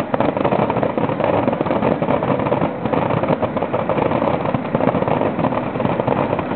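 Fireworks crackling densely and continuously, a steady mass of small rapid pops.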